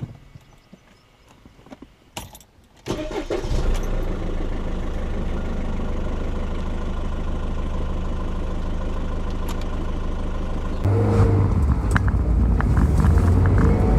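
Car engine cranked and started about three seconds in, then idling steadily; near the end it gets louder and deeper.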